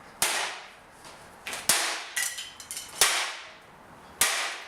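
Golf club striking a vintage General Electric fan heater's metal and plastic housing: about six sharp hits, roughly a second apart, two of them in quick succession. Each hit trails off in a short rattle.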